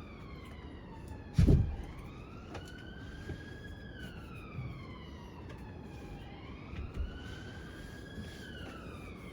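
A siren wailing, slowly rising and falling in pitch in long sweeps. A single loud thump comes about a second and a half in, and a softer knock comes later.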